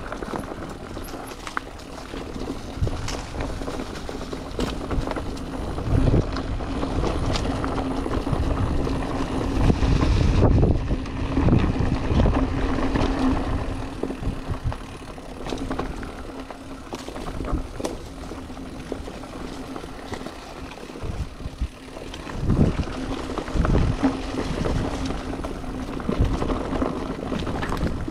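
E-mountain bike being ridden on a trail: a steady hum from the electric drive motor over tyre rolling noise, with rattles and thumps from bumps and gusts of wind on the microphone.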